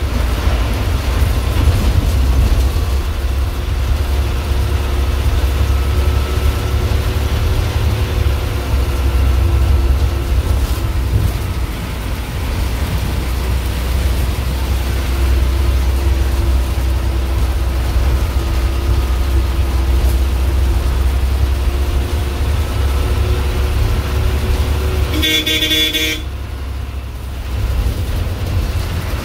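KSRTC bus engine running, a steady low rumble heard from inside the bus. Near the end a horn sounds once for about a second.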